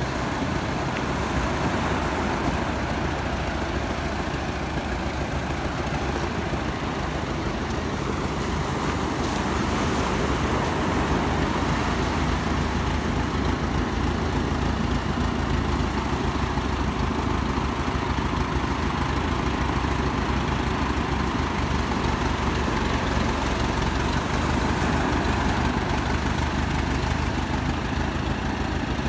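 Old farm tractor's engine running steadily as it drives slowly along the beach and into the shallow surf, with waves washing in.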